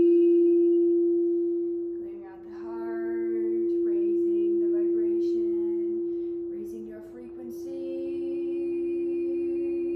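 A crystal singing bowl rings with one steady, sustained tone that swells and ebbs twice. Over it a woman's voice sings wordless, shifting notes through the middle, then settles into a long held note.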